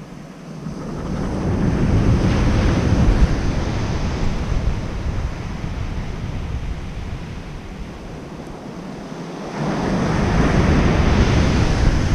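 Ocean surf breaking on a sandy beach: one wave swells up about two seconds in and slowly washes out, and the next breaks near the end.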